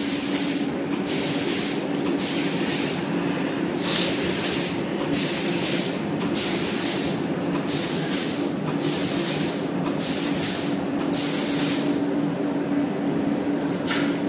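Robot-mounted paint spray gun firing short bursts of spray, about ten hissing bursts each under a second long, stopping near the end. A steady low hum runs underneath.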